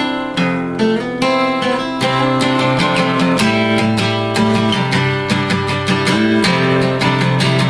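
Background music played on guitar, a quick run of plucked notes over a steady bass line.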